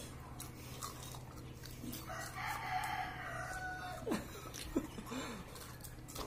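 A rooster crowing once, faint, one long call of nearly two seconds starting about two seconds in, with scattered light clicks around it.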